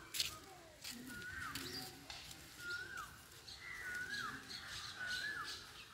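A bird calling over and over, a short whistled note that rises then drops sharply, repeated about once a second.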